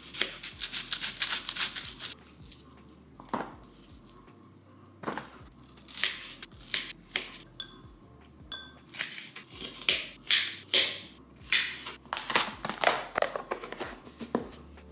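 Kitchen knife slicing a peeled onion on a plastic cutting board: a quick run of cuts at the start, a lull, then scattered cuts with the blade clicking on the board.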